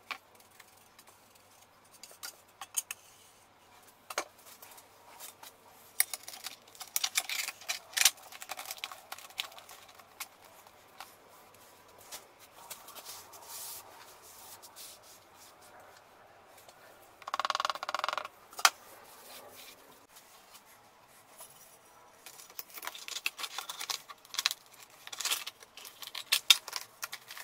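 Small handling sounds of tiling work: scattered light clicks and taps of ceramic tile being set down and handled, and rubbing and scraping of a gloved hand and cloth wiping grout off the tiles, with one longer scrape past the middle.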